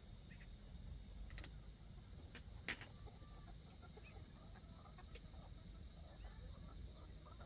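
Chickens clucking faintly, with a few sharp clicks, the loudest about two and a half seconds in, over a steady high hiss.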